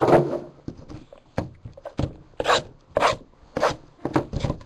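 Small cardboard card packs being slid out of their box and set down and shuffled on a tabletop: a quick series of short scrapes and taps, the loudest right at the start.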